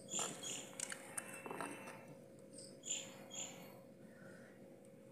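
Faint chirps of a small bird, coming in short pairs twice, with a few light clicks and scrapes of a metal spoon stirring dal in a clay pot.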